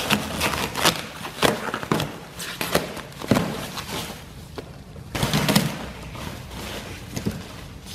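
Clear plastic stretch wrap around a pallet of boxes being slit with a knife and pulled off by hand, crinkling and crackling irregularly, with a louder rip about five seconds in.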